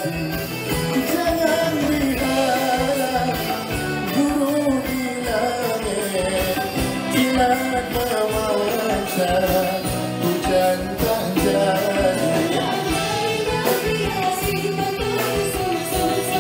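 A live band plays a Malay pop-traditional song, with a male singer's voice over the band.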